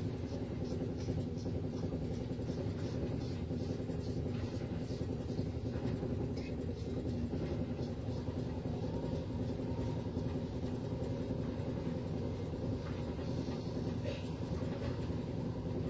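A steady low hum throughout, with faint short scratchy strokes of a razor cutting through lathered stubble, most often in the first half.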